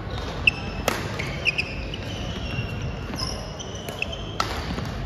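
Badminton rally: several sharp racket-on-shuttlecock hits at irregular gaps, with sneakers squeaking on the hardwood gym floor between them.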